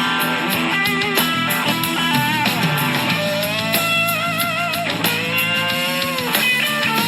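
Blues-rock music led by electric guitar, with long notes bent and held with vibrato, over bass and drums.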